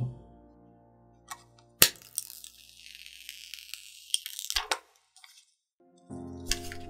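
Plastic protective film being peeled off a phone's glass screen: a sharp snap about two seconds in, then a crackling peel lasting a couple of seconds that ends in a few clicks.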